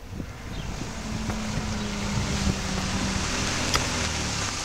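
A car engine running with a steady low hum over a rush of noise, growing louder as the vehicle approaches. A few sharp knocks sound over it.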